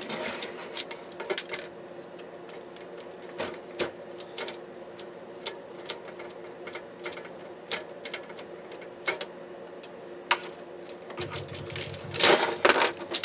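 Scattered clicks and knocks of plastic and sheet-metal parts of a DVD-RW drive being handled and pried apart, with a louder burst of rattling knocks near the end. A steady low hum runs underneath.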